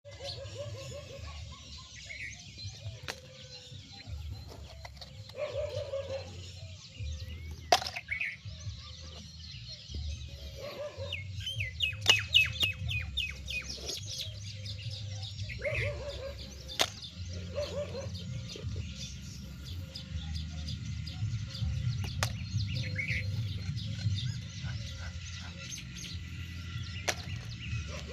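Birds chirping and calling at intervals over a steady low rumble, with scattered sharp clicks.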